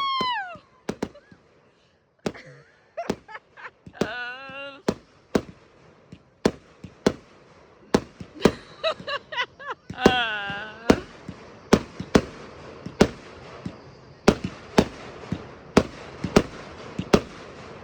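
Fireworks going off: sharp bangs and cracks at irregular intervals, coming faster in the last few seconds.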